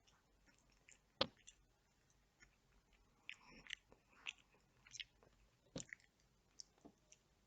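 Faint close-up eating sounds: chewing with soft wet mouth smacks and clicks at irregular intervals. One sharp click about a second in is the loudest.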